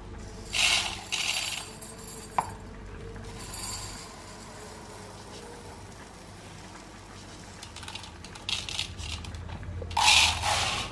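Raw rice grains pouring into and out of a steel measuring cup in short rattling rushes, with a single sharp metal clink about two seconds in; the loudest rush comes near the end as the cup is tipped into a plastic bowl.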